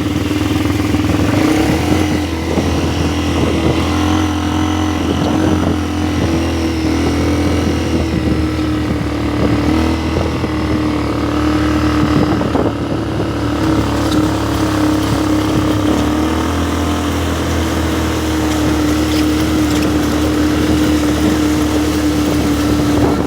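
ATV engine running at a steady, unchanging speed, with scattered small knocks and rattles over the hum.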